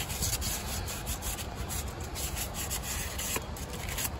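Sandpaper rubbed by hand, back and forth, on rusty steel where the new lower ball joint seats, smoothing the metal so the ball joint goes in easier.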